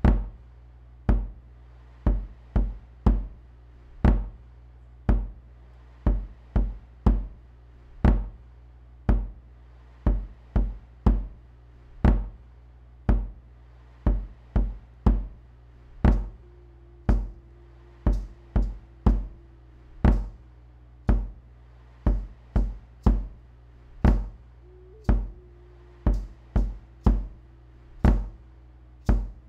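A looped percussion beat: sharp, deep drum hits in a pattern that repeats every couple of seconds, over a steady low drone. In the second half a faint wavering held tone comes in twice.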